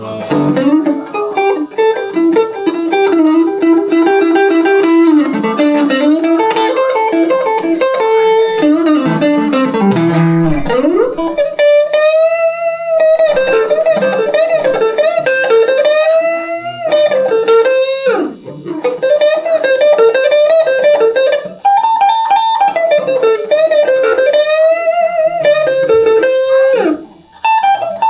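Van Zandt Telecaster electric guitar played solo through a Roland JC-120 amp: an instrumental lead passage of quick note runs, then long held notes bent up and down with vibrato from about eleven seconds in.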